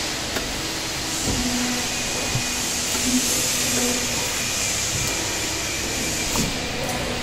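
LVD hydraulic press brake powered up, its hydraulic pump unit running: a steady hiss, with a low hum that comes in about a second in and fades after a few seconds.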